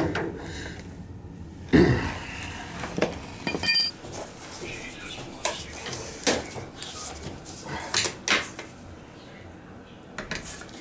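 Scattered metallic clinks and knocks of hand tools on an oil burner's fittings: a tool on a brass fitting with a hose attached, then a screwdriver at the burner housing. There is a short ringing ping just under four seconds in.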